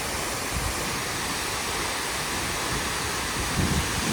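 Waterfall pouring, a steady even rushing noise. A brief low thump a little before the end.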